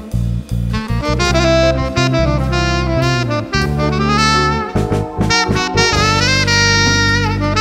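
Latin-jazz band playing: a tenor saxophone plays a quick melodic line that settles on a long held note, bending in pitch near the end, over drum kit, congas and electric bass.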